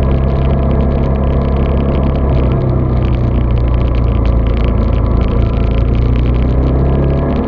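A vehicle engine running steadily, its low hum heard muffled through an action camera's waterproof case, with a shift in the engine note about two and a half seconds in and again near the end.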